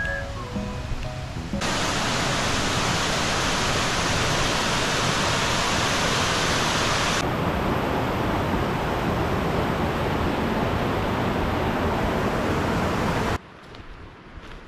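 Loud, steady rushing of a mountain river's white water in a narrow rock gorge, starting abruptly about a second and a half in and cutting off shortly before the end. Footsteps on a stony trail follow.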